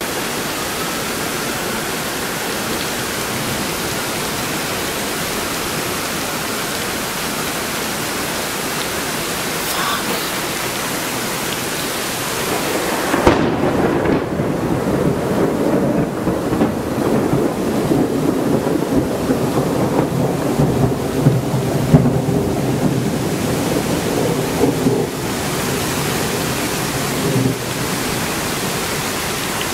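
Steady rain hiss, with a sharp thunderclap about halfway through that rolls into rumbling thunder for about fourteen seconds before dropping away.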